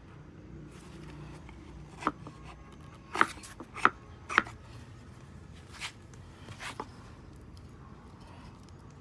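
About six sharp, irregularly spaced hammer strikes on metal, each with a short ring, the loudest three close together in the middle.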